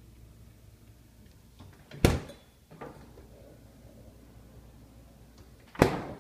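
Two hard slams of doors being shut, about two seconds in and again near the end, with a lighter knock just after the first. A low steady hum is heard before the first slam.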